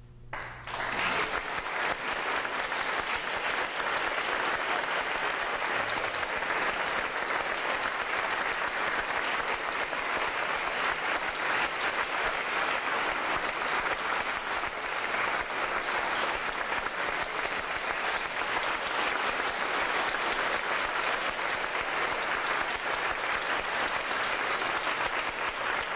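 Audience applauding, breaking out about a second in and going on steadily.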